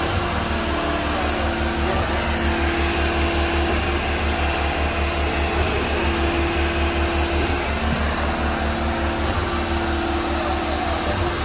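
Trailer-mounted concrete line pump running steadily as concrete is pushed through its hose: a constant engine drone with a fast, even low pulsing.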